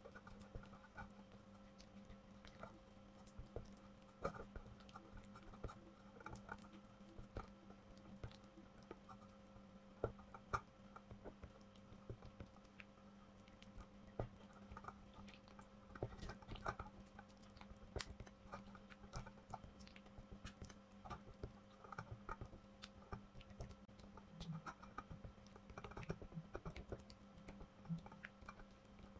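Faint, irregular scraping and light tapping of a silicone spatula stirring soft cream cheese and melting butter in a glass bowl, over a low steady hum.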